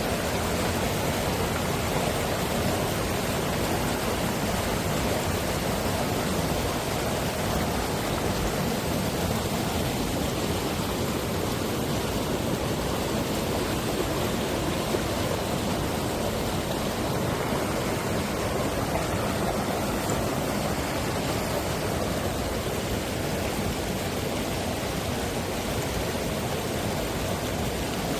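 Mountain stream water rushing, a steady, unbroken rush.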